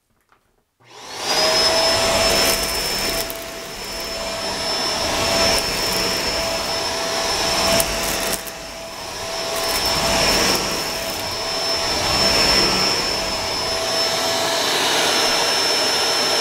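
Shark DuoClean upright vacuum cleaner switched on about a second in, its motor quickly spinning up and then running steadily with a high whine while it sucks up a clump of hair. The loudness rises and falls as it works.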